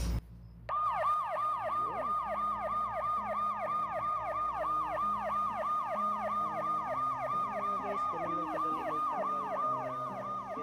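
Police car siren in a fast yelp, its pitch rising and falling about three times a second. It starts less than a second in, after a brief hush. It comes from the soundtrack of a green-screen police-car clip being played back in the editor.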